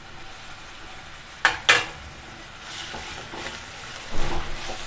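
Onions and ginger-garlic paste sizzling in ghee in a pan as they are stirred. Two sharp knocks come about a second and a half in, and there is a louder burst of stirring near the end.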